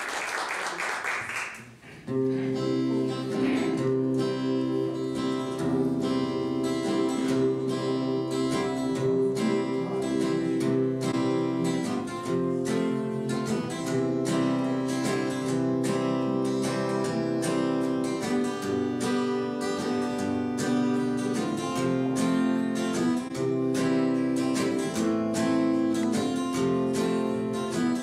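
Applause dies away, and about two seconds in a string band starts an instrumental tune: strummed acoustic guitar and mandolin over upright bass.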